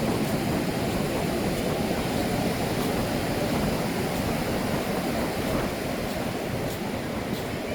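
Ocean surf washing onto a beach: a steady rush of breaking waves with no single wave standing out.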